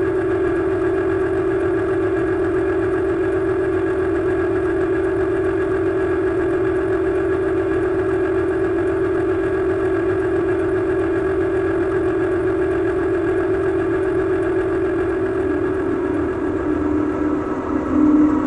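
Distortion sound effect: a loud, steady droning hum held on one pitch over a rough rumble. Near the end it drops a little in pitch and turns uneven.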